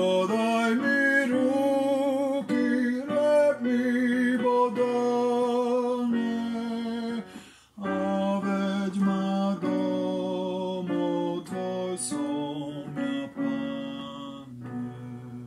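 A hymn sung with vibrato over acoustic guitar chords. It breaks briefly about halfway, then ends on a held final chord that fades away near the end.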